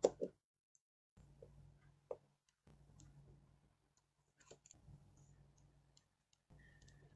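Precision screwdriver clicking and tapping against a smartphone's screws and plastic back housing while screws are undone: two sharp clicks at the start and another about two seconds in, then faint scattered ticks.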